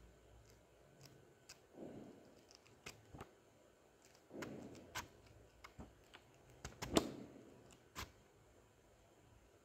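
Paper pages of a printed book being flipped through by hand: faint soft rustles with scattered sharp paper snaps and clicks, the loudest about seven seconds in.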